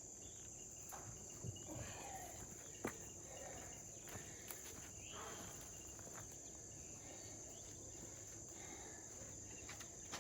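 Insects chirring in a steady, high-pitched chorus, with a few faint clicks and knocks scattered through it, the sharpest about three seconds in.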